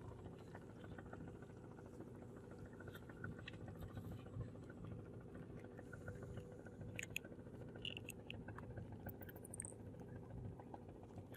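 Faint, steady low hum of a fishing boat's engine, with scattered small clicks and knocks.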